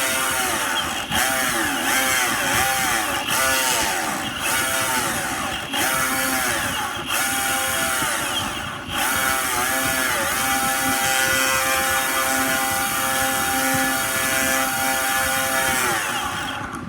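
Boosted Board electric skateboard's belt-drive motor whining as it is run up and eased off in a series of short surges, then held at a steady pitch from about ten seconds in until it stops near the end. It is making an odd noise that the owner traces to the left-side drive.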